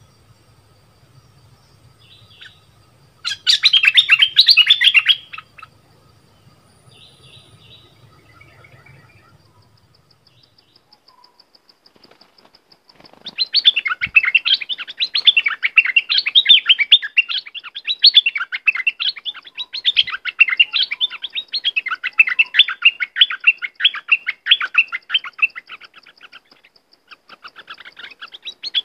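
Bulbul (the southern Thai 'nok dok taeng') singing: a brief burst of rapid chirping notes a few seconds in, then after a lull a long run of fast, repeated chirps that pauses briefly near the end and starts up again.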